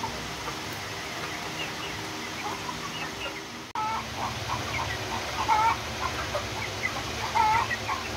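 A flock of young Light Sussex chickens, about nine and a half weeks old, peeping and clucking over a steady low hum. The sound changes abruptly a little under four seconds in, after which the calls are louder and more frequent.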